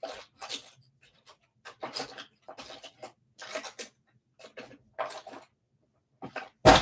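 Someone rummaging through makeup items and brushes: a run of short rustles, clicks and clatters, about two a second, with a louder thump near the end.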